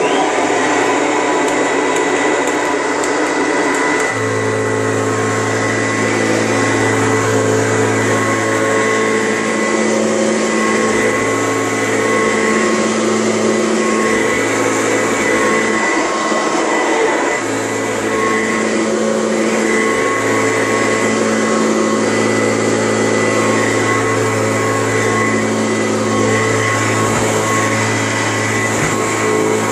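1978 Kirby Classic III upright vacuum cleaner, fitted with a Lexan fan and a four-row brush roll, switched on and running steadily while it is pushed over a rug. A deeper hum joins about four seconds in and wavers as the machine moves.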